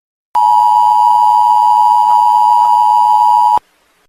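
A loud, steady electronic alert tone, the attention signal of an Emergency Alert System broadcast, held for about three seconds and cutting off abruptly. It marks the start of an alert message.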